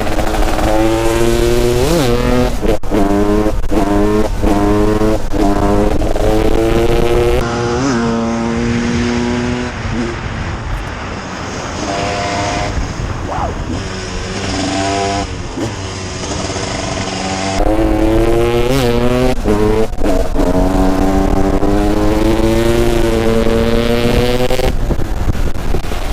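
Husaberg TE 300 two-stroke supermoto engine accelerating hard, its pitch climbing and dropping back again and again as it shifts up through the gears. A quieter stretch in the middle has lower, uneven revs and brief blips before it pulls hard again.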